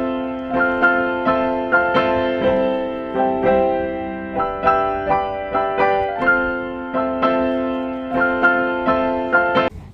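Background music: a piano or electric-piano melody of struck notes, about two a second, each fading after it is played. It cuts off suddenly at the end.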